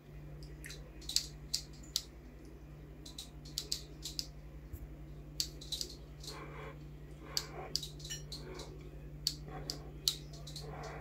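Scattered small sharp clicks and taps, irregular and several to a second at times, over a steady low electrical hum.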